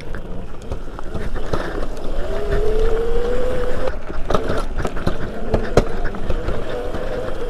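Razor MX650 electric pit bike with a 72 V MY1020 motor kit riding a bumpy dirt single track: the motor whines, rising in pitch a couple of seconds in as it speeds up, over a low wind rumble, with frequent knocks and rattles from the rough trail.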